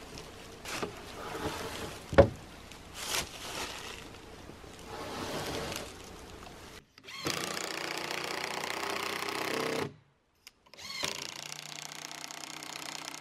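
Solar panels set down and slid onto a wooden sled frame: a few knocks and one sharp clack about two seconds in. Then a cordless drill runs twice, each time steadily for about three seconds, driving a screw into a wooden block.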